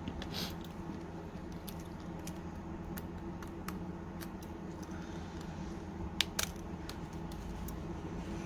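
Small sharp clicks and taps of tools handling tiny smartphone parts, scattered irregularly, with the loudest pair about six seconds in, over a steady low hum.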